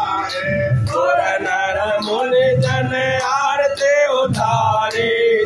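Male voice singing a Hindu aarti hymn to Hanuman in held, melodic lines, over a steady beat of percussion with short sharp strikes about twice a second.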